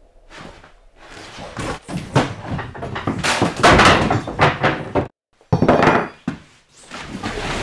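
A rapid series of heavy wooden thuds and bangs as a wooden bench is knocked over onto a wooden floor, breaking off briefly just after five seconds in and then going on.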